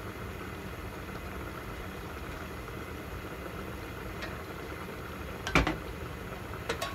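Steady low rumble from a lit gas burner under a covered pan of stew. About five and a half seconds in comes one sharp metal clank as the aluminium lid is lifted off, then a few lighter clinks near the end.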